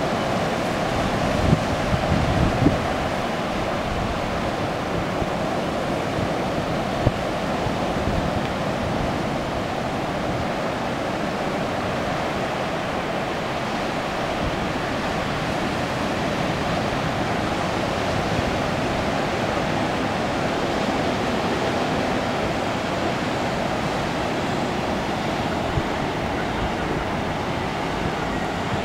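Ocean surf breaking and washing up the beach, a steady rush of waves, with a few low gusts of wind on the microphone in the first seconds.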